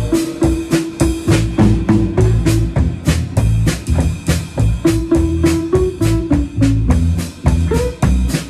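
Live band playing, heard from right beside the drum kit: a steady drum-kit beat with snare, kick and cymbals over bass and held notes.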